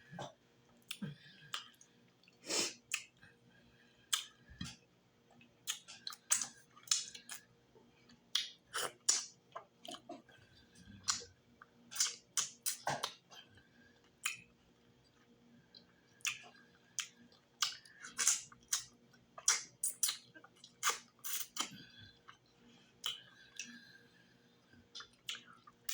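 Close-miked chewing and wet mouth smacking of someone eating fufu with okra stew and fried fish: irregular sharp clicks and smacks, a few a second, with short pauses between bites.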